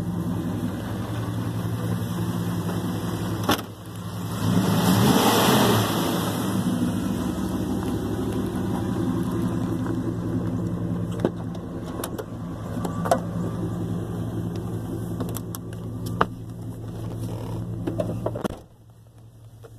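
Dodge Ram pickup engine idling steadily, with a few clicks and a louder rush of noise about four to six seconds in. Near the end a door shuts with a thump and the idle becomes much fainter.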